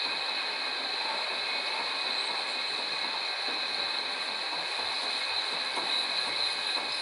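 Metal lathe running, a steady machining noise with a high, even whine.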